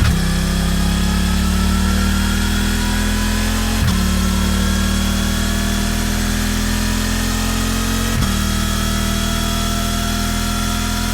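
Suzuki V-Strom 800's 776cc 270-degree twin engine running steadily at low revs, its pitch creeping slightly upward. A brief click comes at about 4 and 8 seconds in, where the pitch drops back.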